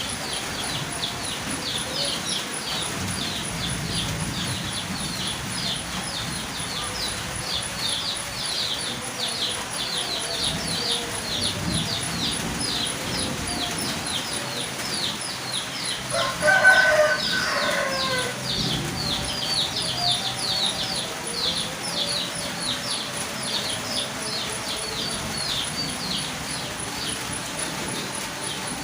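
Rapid high chirping, about three short downward-sliding notes a second, keeps on throughout. About halfway through a chicken calls loudly for a couple of seconds, a rooster crowing or hen clucking.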